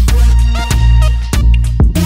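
Music with a heavy bass and a steady drum beat.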